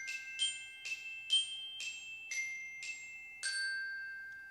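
Short intro jingle of bright chiming notes struck about two a second, the last one ringing out and fading away.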